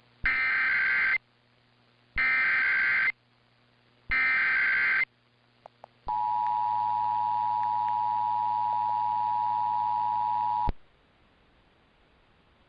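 Emergency Alert System test: three one-second bursts of SAME header data, about two seconds apart, then the steady two-tone EAS attention signal (853 and 960 Hz) held for about four and a half seconds before it cuts off suddenly.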